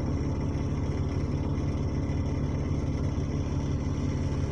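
A bus's diesel engine idling steadily, heard from inside the passenger saloon.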